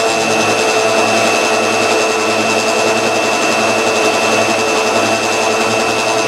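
Homemade tool post grinder and mini lathe running together, with a steady high whine, as the grinding wheel is fed in light passes across a dead center to regrind its 60-degree point.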